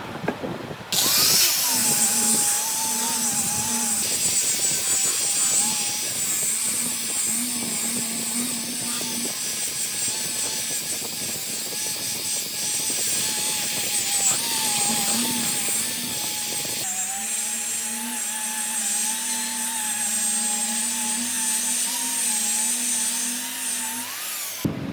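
An electric power tool running steadily on wood, starting about a second in, with a wavering motor whine over a strong high hiss; its sound changes about two-thirds of the way through.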